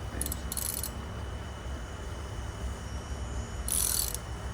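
Ratchet wrench clicking in short strokes on the wheel hub's bolts, two quick strokes near the start and one near the end, over a steady low rumble.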